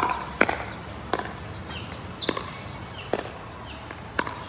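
Pickleball rally: paddles striking the hollow plastic ball, about six sharp pops half a second to a second apart in an uneven rhythm.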